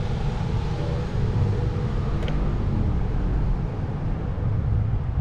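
Steady wind rumble on the microphone of a moving electric scooter, with the scooter's running noise underneath. A single light click about two seconds in.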